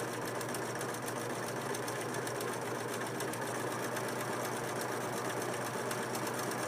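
Singer 4562T electric sewing machine running steadily at an even speed, stitching a decorative scalloped clamshell stitch.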